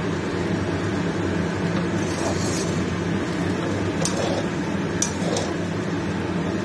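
A metal spatula tossing noodles in a large metal kadai, with a few sharp clicks as it strikes the pan about four and five seconds in, over a steady kitchen hum.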